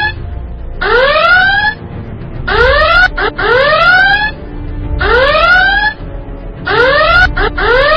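A repeating electronic whooping sound, like an alarm: sharply rising pitch sweeps, often two in quick succession, coming again about every two seconds.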